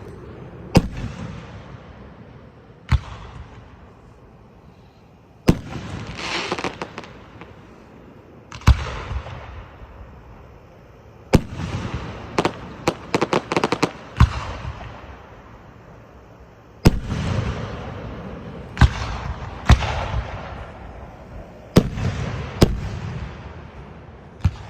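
Aerial firework shells bursting one after another, a sharp bang every one to three seconds with a rolling, echoing tail after each. About twelve seconds in, a quick string of cracks goes off.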